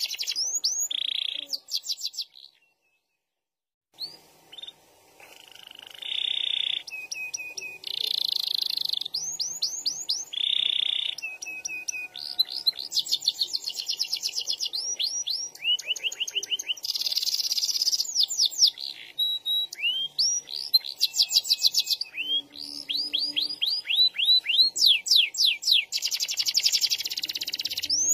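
Domestic canary singing vigorously: long rolls of rapid trills and fast repeated notes, with a short break about three seconds in.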